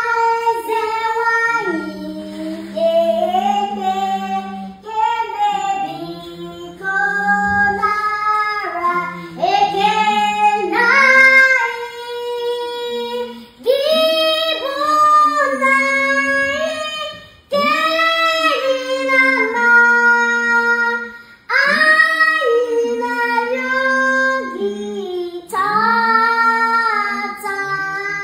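A young girl singing a song in a high voice, phrase after phrase with short breaks, with a lower held note beneath many of the phrases.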